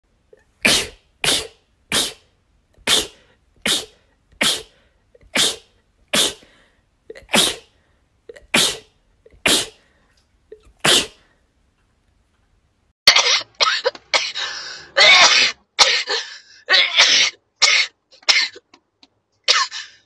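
A woman sneezing in rapid succession: about a dozen short, sharp sneezes, roughly one a second. After a short pause comes a run of longer, noisier bursts.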